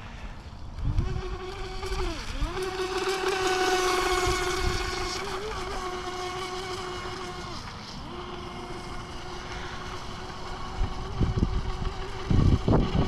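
DEERC RC speed boat's KV2850 brushless motor whining steadily as the boat runs on the water. Its pitch dips sharply and recovers about two seconds in, as the throttle is eased and opened again, and dips once more around eight seconds. The whine is loudest around four seconds and then fades somewhat. Wind buffets the microphone near the end.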